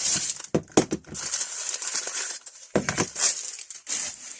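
Rustling and crinkling of wrapping as hand tools are unpacked, with a few sharp knocks and clinks of metal tools being picked up and set down.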